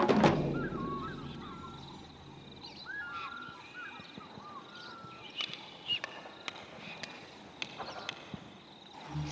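Percussion music dies away in the first second, leaving faint natural ambience with birds calling: short curving chirps in the first few seconds, then scattered sharp calls and clicks.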